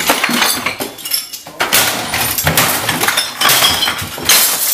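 Glass and household objects being smashed: repeated crashes with the clink and shatter of breaking glass.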